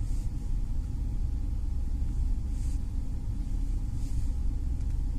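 Steady low background rumble that holds at an even level, with a faint thin hum above it.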